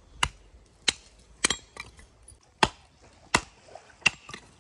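Hatchet chopping wood: six sharp blows, a little more than half a second apart, with a short pause in the middle.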